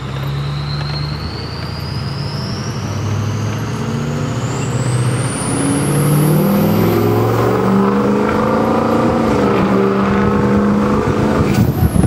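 2003 Ford F350 diesel engine pulling under throttle, its note rising, with the turbocharger's whistle climbing steadily higher in pitch as it spools up. Near the end the throttle comes off and the whistle falls away quickly.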